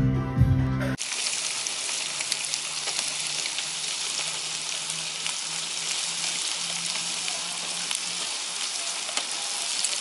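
Pork cuts sizzling on a wire-mesh grill over glowing charcoal: a steady frying hiss dotted with small crackles and pops. It starts about a second in, when background music cuts off.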